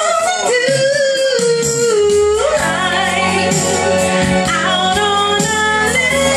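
A woman singing into a handheld microphone with music behind her, holding a long wavering note early that drops in pitch, and starting another held note near the end.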